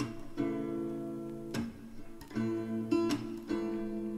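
Background music: an acoustic guitar strumming chords, with several strums in these few seconds.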